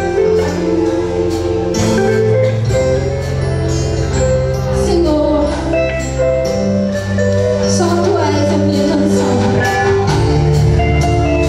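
Live worship band music: a woman singing lead into a microphone over electric guitar and sustained low notes, with a steady beat.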